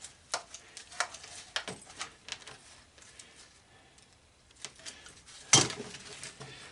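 Pieces of scrap metal being handled, clinking and knocking against each other several times, then one loud metal clank about five and a half seconds in.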